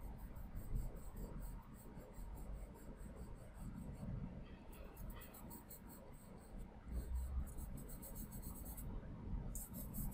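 Charcoal pencil scratching on layout paper as shading strokes are drawn, in several short stretches with brief pauses between them.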